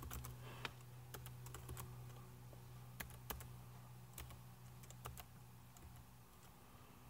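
Faint, slow keystrokes on a MacBook Pro laptop keyboard: about a dozen separate clicks at an irregular pace, over a faint steady low hum.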